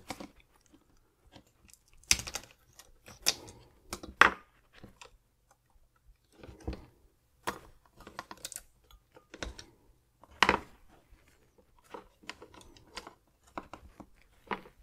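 A metal tool prying a smartwatch's circuit board out of its plastic case: irregular clicks, scrapes and small plastic cracks, with a few sharper snaps as the board is levered free.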